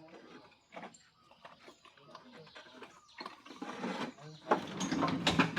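Scattered knocks and scrapes as broken pieces of a storm-wrecked chedi are shifted by hand, busier and louder in the second half, with faint voices.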